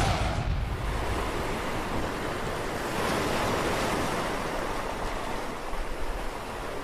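Ocean surf with wind: a steady rushing of waves that swells a little about three seconds in.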